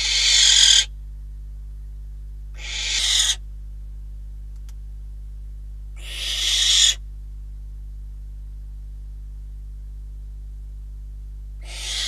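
Barn owl giving harsh, hissing calls: four in all, each swelling in loudness for under a second and then cutting off abruptly, the last starting near the end.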